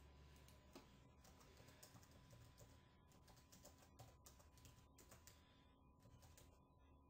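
Faint typing on a computer keyboard: slow, irregular key clicks as a word is entered.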